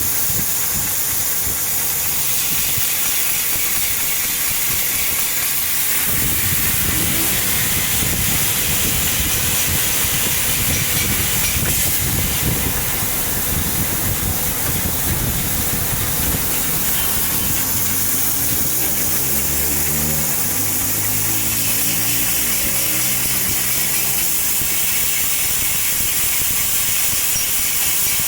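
CNC laser cutting machine at work: a steady hiss of cutting gas and extraction throughout, with a low mechanical rumble joining about six seconds in and a stepping, rising-and-falling motor hum from the moving axes around two-thirds of the way through.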